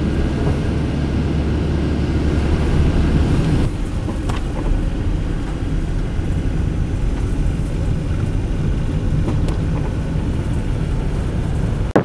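Car cabin noise while driving on a snow-covered road: a steady low rumble of engine and tyres, changing slightly in tone about four seconds in.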